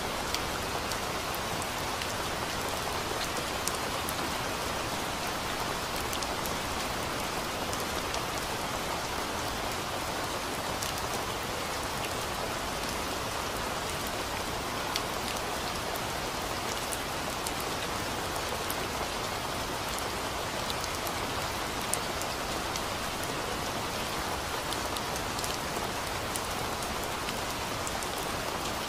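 Steady rain: an even hiss with scattered sharp hits of individual drops.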